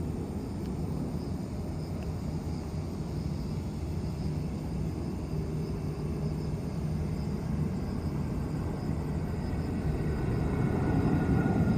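Malaysia Airlines Airbus A330 jet airliner on landing approach: a steady low engine rumble that builds louder toward the end, with a thin engine whine slowly falling in pitch in the last couple of seconds.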